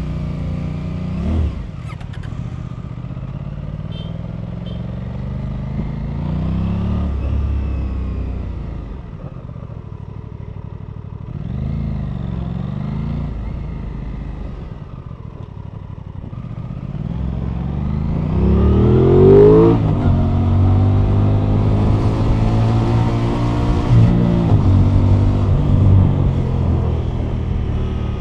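Aprilia RS 660's 659 cc parallel-twin engine through its stock exhaust, heard onboard while riding: pulling away at low revs, easing off around the middle, then a hard acceleration with the revs rising in steps as it shifts up, about two-thirds of the way through. After that it runs steadily at speed with wind rush over the microphone.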